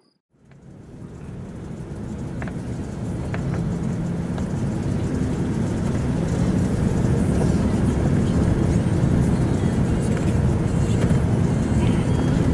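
A car driving: a steady low engine and road rumble that swells in over the first few seconds and then holds, with a few faint knocks.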